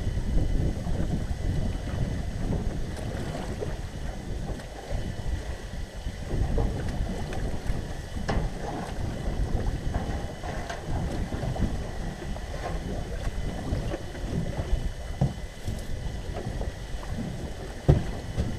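Wind buffeting the microphone over a choppy lake, with scattered clicks and knocks from gillnets being hauled into the boat. The sharpest knock comes near the end.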